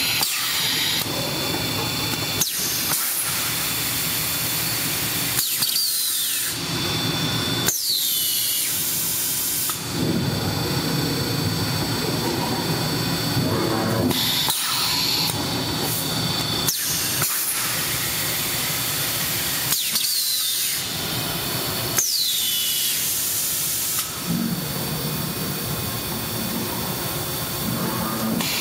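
Fully electric extrusion blow molding machine running through its cycles: repeated bursts of hissing air and a high whine that falls in pitch several times, with short pauses between the strokes.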